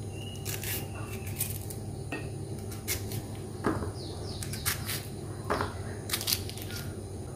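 A small knife cutting through fresh pineapple held in the hand: soft crunching cuts and light clicks of the blade at irregular moments, roughly one a second, over a faint low hum.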